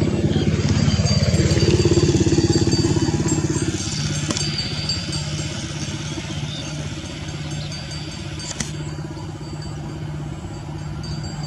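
Airbus A320 jet engines running as the airliner moves on the runway. The noise is loudest about two seconds in and then eases off, with a steady high whine and a lower tone that drops in pitch about a second in.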